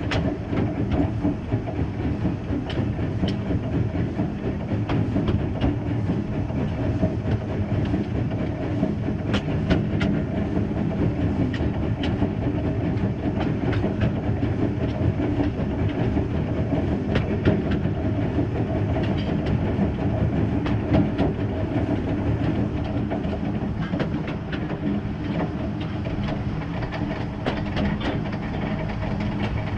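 Small narrow-gauge 0-6-0WT well-tank steam locomotive running slowly along the track, heard from its front end: a steady rumble with irregular clicks from the wheels on the rails.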